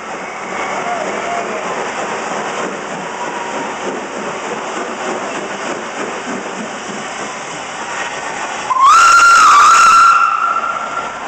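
Steam locomotive RPSI No. 4, a 2-6-4 tank engine, running into the platform with a steady hiss and rumble of the train rolling past. About nine seconds in, it gives a loud steam whistle blast that swoops up, dips briefly and holds for about a second and a half.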